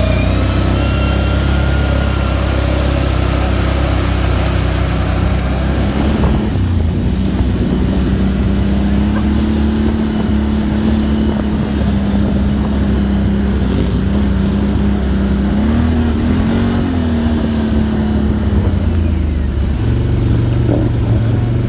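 ATV engine running steadily while driving through a water-filled trail, then, after a change about six seconds in, an ATV engine droning under load as it tows a kayak by rope through muddy water, with water churning. Around two-thirds of the way the engine note briefly rises and falls.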